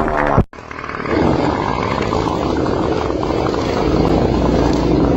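Long pooping-and-farting sound effect: a continuous, loud, low rumbling noise. It breaks off abruptly about half a second in and resumes straight away.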